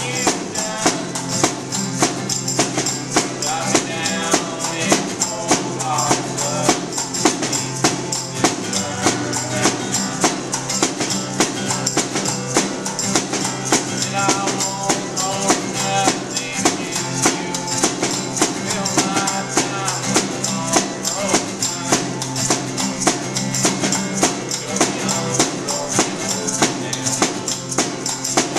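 Small acoustic band playing a song: a strummed acoustic guitar, a snare drum played with sticks on a steady beat, and hand shakers hissing along, with a voice singing at times.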